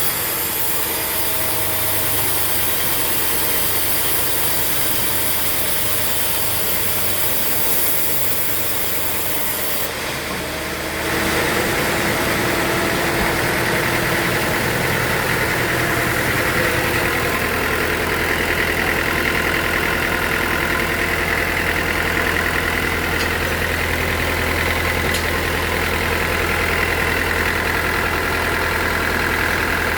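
Sawmill machinery running steadily, an engine-like drone. About ten seconds in the sound changes and a deeper steady hum sets in.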